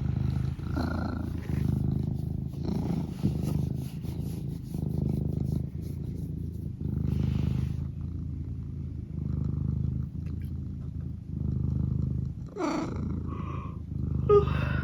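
Domestic cat purring steadily close up, the low rumble swelling and easing with each breath. Near the end a short rising vocal sound breaks in.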